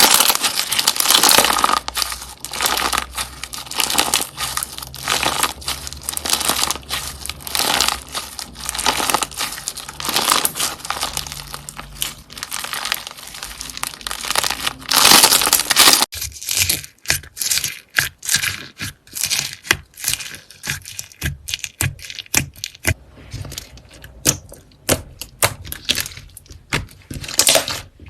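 Hands working something crinkly, with dense crinkling and crackling at first; about halfway it changes to separate sharp clicks and taps.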